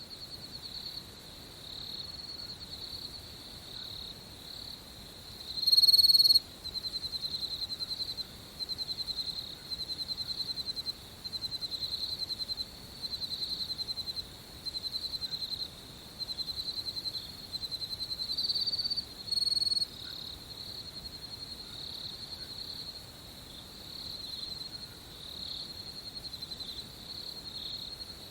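Crickets chirping at night: a steady high-pitched chorus of pulsed trills. For a stretch in the middle, one louder, nearer cricket sings in repeated trills about a second long, the first of them the loudest.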